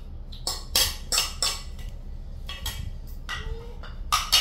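Plates and a metal fork clattering and clinking as plates are handled and food is served onto them, in a string of sharp knocks and clinks, the loudest near the end.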